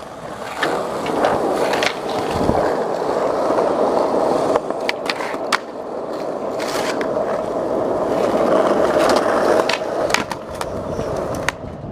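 Skateboard rolling on pavement: a steady wheel rumble with scattered sharp clacks of the board, and a low thud about two and a half seconds in.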